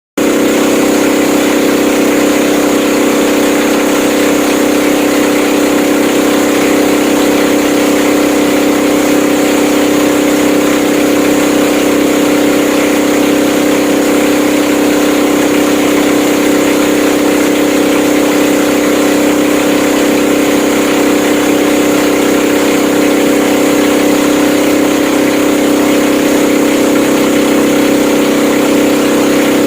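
Motorboat engine running at a steady speed, an even drone.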